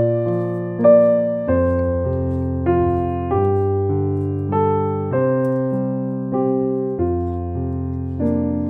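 Background piano music: a slow, gentle melody of single notes, each struck and left to ring and fade, over low bass notes that change every few seconds.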